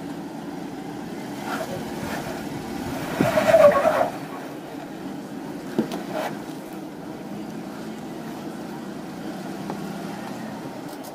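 Jeep Wrangler JK engine running at low speed as the Jeep crawls up a rock ledge, getting louder for about a second a few seconds in. A single sharp knock comes about six seconds in.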